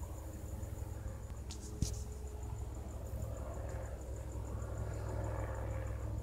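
Crickets chirping, a high thin note pulsing evenly several times a second, over a steady low rumble that grows slightly louder. A sharp knock about two seconds in.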